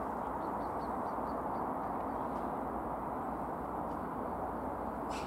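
Distant GWR Hitachi Intercity Express Train approaching: a steady low rumble. A few faint bird chirps come about half a second to a second and a half in, and a single short click near the end.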